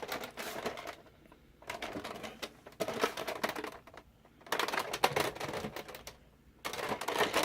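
Bursts of clicking and rustling handling noise, coming in four bouts with short quiet gaps between them.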